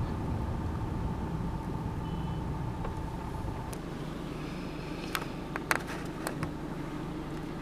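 Car cabin: low engine and road rumble as the car drives and slows to a stop, turning quieter about four seconds in. A few sharp clicks follow about a second later.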